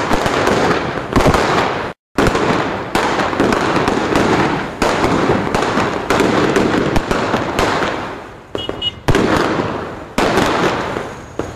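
Firecrackers and fireworks going off in a dense, rapid crackle of small bangs. The crackle breaks off for a moment about two seconds in, and several times it swells suddenly and fades away again.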